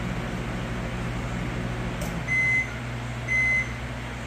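Microwave oven running with a steady hum, then finishing its cycle: a click about two seconds in, then the end-of-cycle alert beeping, short high beeps about once a second.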